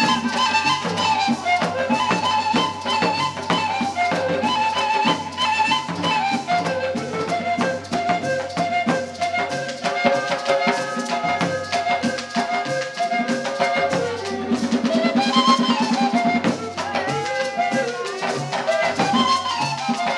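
Cumbia music: drums and rattles keep a steady rhythm under a melody line.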